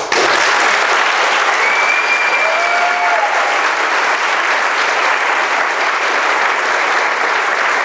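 Audience applauding in a meeting hall after a public speaker finishes. It breaks out suddenly and holds steady.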